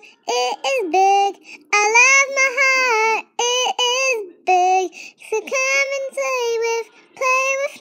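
A child singing unaccompanied in short held phrases that slide in pitch, with brief breaths between them and the words not clear.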